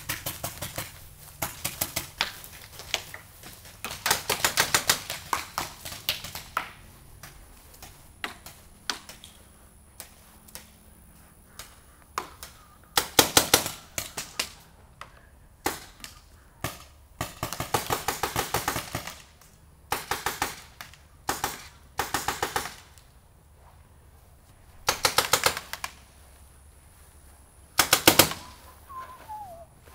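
Paintball markers firing in rapid strings of shots, a cluster every few seconds with short pauses between, some strings louder than others.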